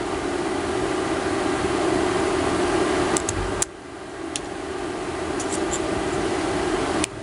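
Steady fan-like machine hum with a few scattered small clicks. The hum drops off suddenly about halfway through and again near the end, then swells back each time.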